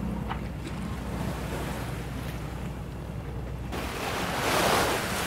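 Wind buffeting the microphone and water rushing past a sailing yacht under way, with a steady low hum through the first few seconds; the rush swells near the end.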